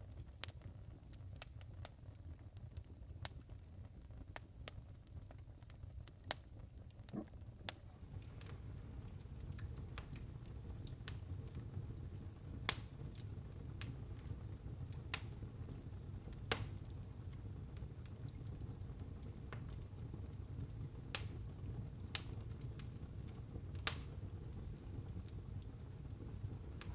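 Wood burning in a fireplace: irregular sharp crackles and pops over a steady low rumble of the fire, with a few louder pops in the second half.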